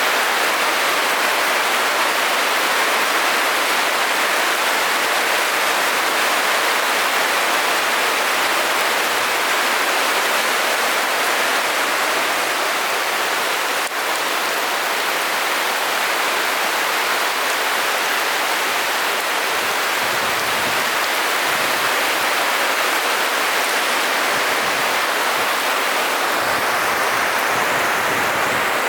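Heavy rain pouring down steadily as a dense, even hiss, with one brief click about halfway through.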